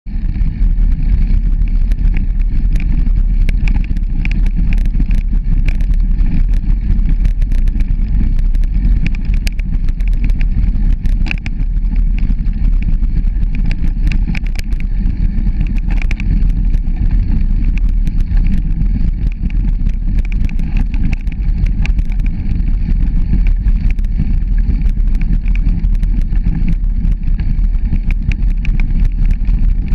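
Bicycle ride heard through a bike-mounted camera: a steady low rumble of wind on the microphone and tyres rolling over a leaf-strewn dirt path, with frequent small clicks and rattles from the bumps.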